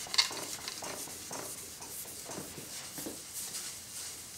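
Jet jointer knives held in a sharpening jig, rubbed back and forth on wet 20-micron 3M micron-graded abrasive film: a series of soft scraping strokes, with a sharp click about a quarter second in.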